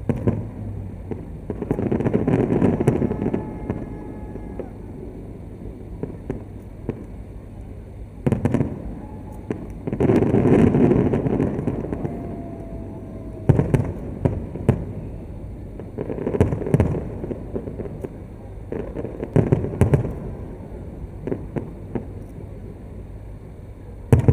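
Fireworks going off: about six booming bursts that rumble for up to two seconds each, with sharp cracks and pops between them.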